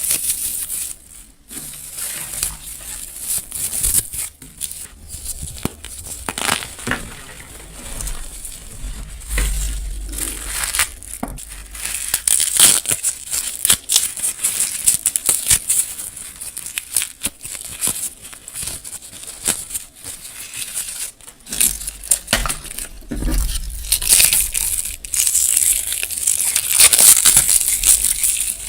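Close-miked crushing of dry, brittle material by hand: a dense, uneven run of small crackles and crunches, with a few heavier pressing thuds.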